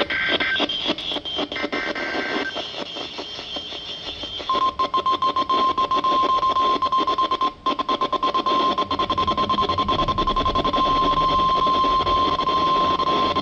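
NOAA Weather Radio alert signal through a receiver with static: the last burst of the SAME data header, a harsh two-tone screech, then about four and a half seconds in the steady single-pitch 1050 Hz warning alarm tone sounds and holds to the end. The tone announces that a warning is about to be read, here a special marine warning.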